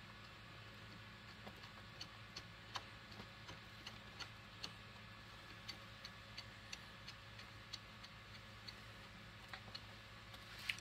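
Faint, irregular light clicks of small metal parts, about one or two a second, as the pivot bolt of a reloading press's indexing arm is turned in by hand, over a low steady hum.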